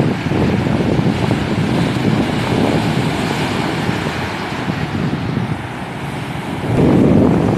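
Ocean surf breaking and washing in, with wind buffeting the microphone; a louder rush comes near the end.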